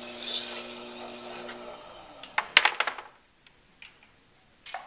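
Electric potter's wheel running with a steady motor hum while a cut-off wire is drawn under a freshly thrown clay plate with a scraping hiss. About two seconds in, the hum slides down as the wheel is stopped. A quick cluster of sharp clacks follows, then a few faint clicks.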